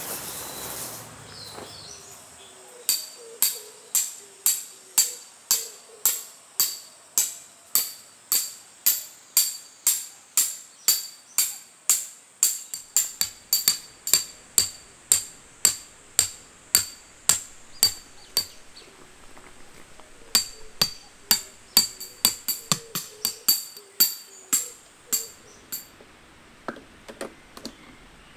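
A hammer striking metal in steady, even blows, a little over two a second, each with a short metallic ring. The blows pause for a couple of seconds just past the middle, start again, and end in a few lighter taps.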